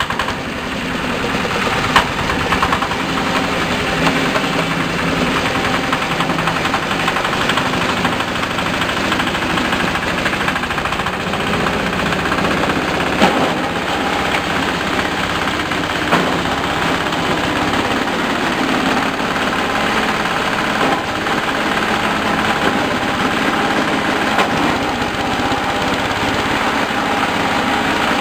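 A coconut husk crushing machine (hammer mill) driven by a small single-cylinder diesel engine, running steadily while husk is fed in and ground. A few sharp clicks or knocks stand out, about two seconds in and twice midway.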